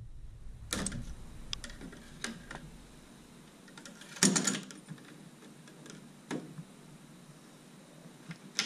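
Stainless steel Baker Hookout de-hooker handled in its PVC tube holder: a handful of separate sharp clicks and clacks of metal against plastic, the loudest about four seconds in.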